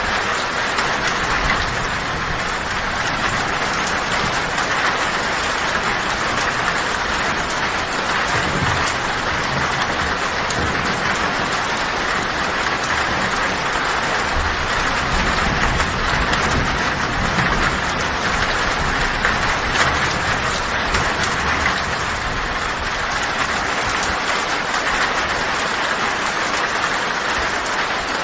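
Heavy rain falling steadily on a tin (corrugated metal) roof, with a low thunder rumble through the middle stretch.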